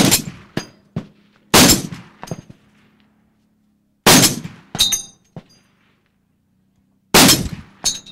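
Barrett .50 BMG rifle with a muzzle brake firing four shots, one and a half to three seconds apart, each trailing off in a long echo. Faint metallic pings follow some of the shots.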